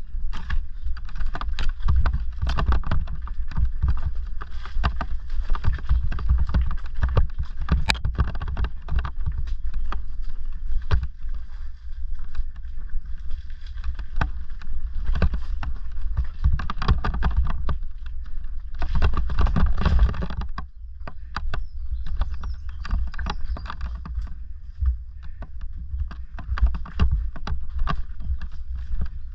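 Bafang-powered Orange Gyro electric mountain bike clattering and rattling over loose stones and rocks, with a constant low rumble from the ride. The rattling is busiest at first and eases off after about twenty seconds.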